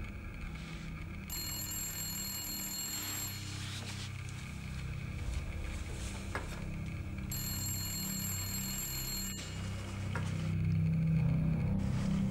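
Telephone ringing twice, each ring about two seconds long with a four-second gap between, over a low steady drone.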